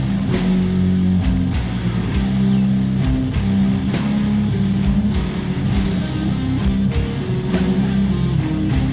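Heavy metal music with distorted electric guitar and steady drum hits.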